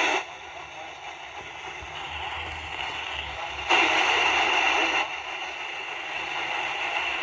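Emergency Alert System test alert audio from an analog TV's speaker: a steady hiss with a louder burst about four seconds in, lasting just over a second.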